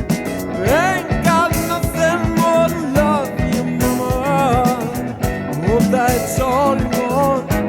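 Westcoast-style soul-pop song: a band with drums, bass and chords, under a lead melody that slides and bends with vibrato, including a long upward slide about a second in.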